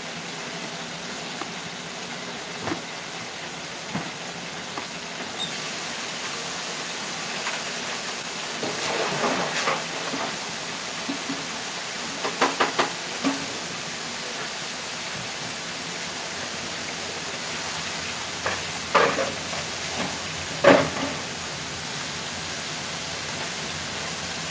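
Mustard fried ribs frying in hot oil in a stockpot: a steady sizzling hiss that grows brighter about five seconds in. A few short clatters of kitchenware being handled at the counter break in now and then.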